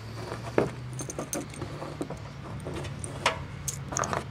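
Irregular light metallic clicks and clinks of small hardware and tools being handled during hardtop assembly, over a low steady hum.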